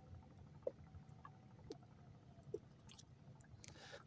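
Near silence: a faint low rumble with a few soft knocks about a second apart and a faint rustle near the end.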